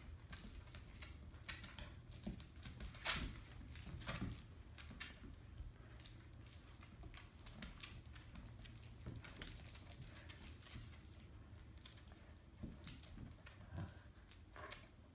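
Dogs' claws clicking and scuffling on a hard floor as a Finnish Spitz and an American Eskimo puppy tug on a toy: irregular light taps throughout, the loudest about three seconds in.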